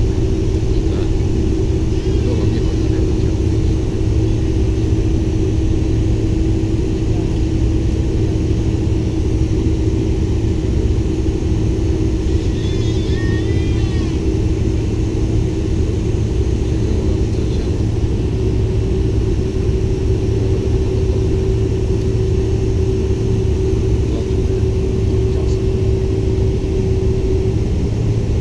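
Cabin noise of a Boeing 747-400 Combi taxiing with its GE CF6-80C2 engines at low power: a steady rumble with a constant hum, holding level throughout.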